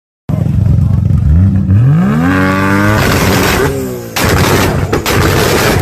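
Nissan GT-R engine revving hard, its pitch rising in two sweeps. From about four seconds in it is at full throttle, loud and rough, with sharp cracks from the exhaust.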